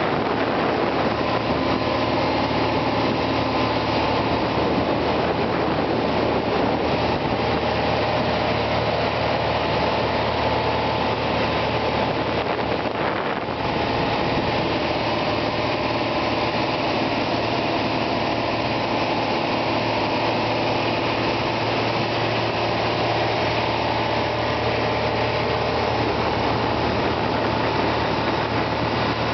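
Boat's motor running steadily with the boat under way, an even engine drone with steady tones and a slight dip about halfway through.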